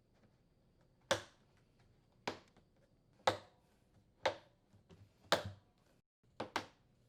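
Plastic retaining tabs on a washer's tub cover snapping into place, one after another: six sharp snaps about a second apart, the last one a quick double.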